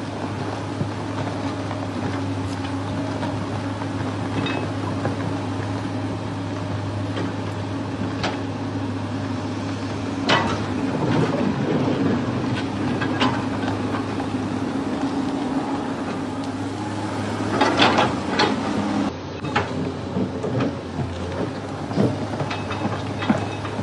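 A steady low mechanical hum with scattered clicks and knocks over it, which come thickest about two thirds of the way through.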